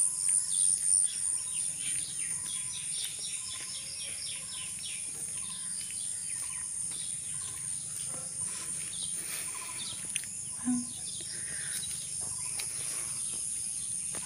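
Outdoor ambience of insects keeping up a steady high-pitched trill, with a bird repeating a short call note a little more than once a second through the first half.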